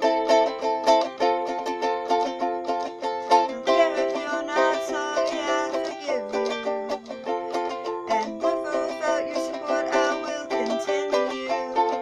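Ukulele strummed in a steady rhythm of chords, with a voice singing over it from about four seconds in.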